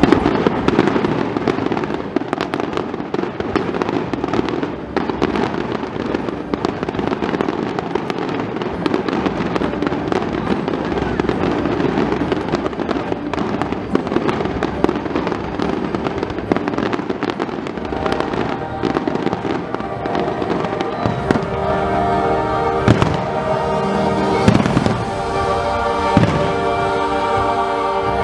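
Aerial fireworks shells bursting and crackling in quick succession, with the display's music playing along. The music comes through more clearly past the middle, while the bursts go on.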